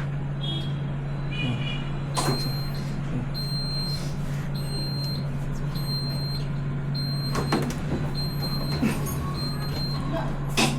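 Autoclave's electronic beeper sounding short high beeps, about one a second from roughly two seconds in, over a steady low hum, with a few sharp clicks.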